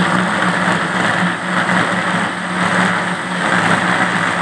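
Electric blender running steadily at full speed, grinding wheat grains with water into a paste, its motor humming under the churning of the jar.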